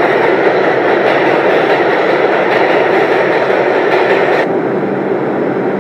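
Subway train running loud and steady in the station, a dense rumble of wheels on rails. About four and a half seconds in, the high hiss drops away abruptly and a lower hum remains.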